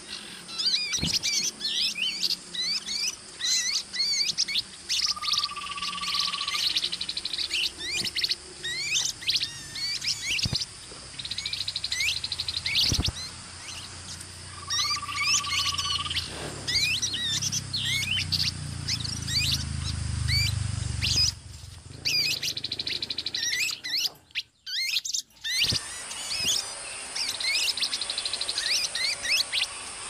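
A busy chorus of tepus babbler calls: many quick rising and falling chirps, stretches of fast trill, and a short level whistle twice, about five and fifteen seconds in. A low rumble sits underneath for a few seconds midway, and the sound drops out briefly near the end.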